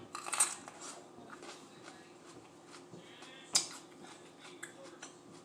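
Chewing and crunching raw mini sweet peppers close to the microphone, with a burst of crisp crunching at the start and one sharp crunch about three and a half seconds in.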